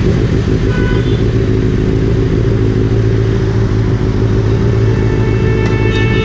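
Motorcycle engines idling steadily, a low even hum. Music comes in near the end.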